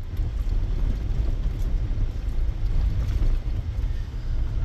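Vehicle driving on a gravel road: a steady low rumble of tyres and running gear.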